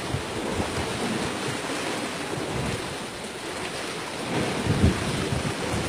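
Wind buffeting the microphone over open sea, with waves washing below a floating raft; a rumbling, gusty noise.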